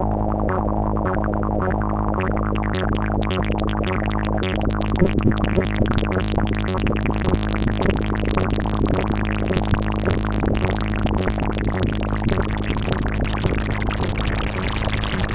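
Behringer MS-1 analog monosynth playing a repeating note pattern, its filter cutoff stepped randomly by sample-and-hold modulation, giving a jumping, burbling tone. The sound grows brighter over the first few seconds and then keeps flickering between dull and bright.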